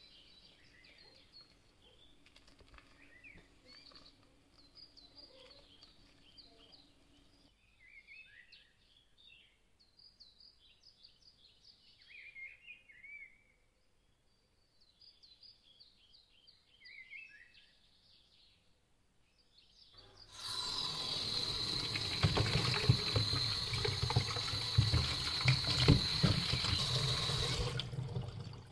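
Kitchen tap running hard into a stainless-steel sink for about eight seconds, starting about twenty seconds in and cutting off abruptly: water rinsing boiled chicken livers in a colander. Before it, faint bird chirping.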